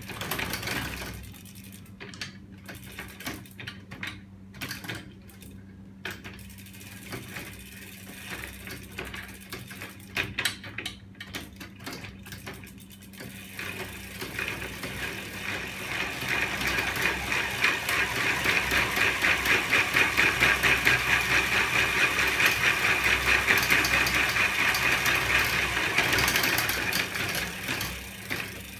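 Homemade bicycle magnet-engine mechanism: aluminium swing arms with stacks of neodymium magnets working around the rear wheel and chain sprocket. First come scattered metallic clicks and knocks. About halfway through the mechanism runs up into a fast, even clatter, which fades near the end.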